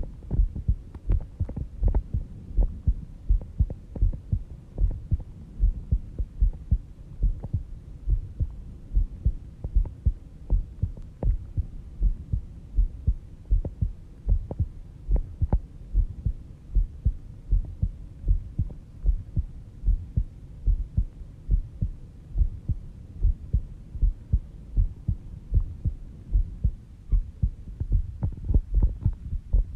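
A sleeping person's resting heartbeat: steady, regular low thumps at a slow pace of about 70 beats a minute.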